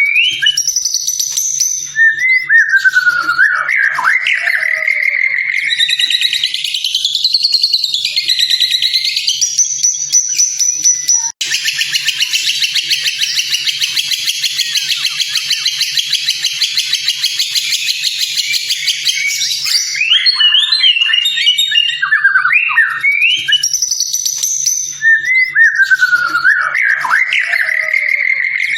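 White-rumped shama (murai batu) singing: loud whistled phrases with sweeping rising and falling notes, broken about a third of the way in by a sudden cut into a long, dense, rapid buzzing trill that lasts several seconds before the whistled phrases return. A faint low hum runs underneath.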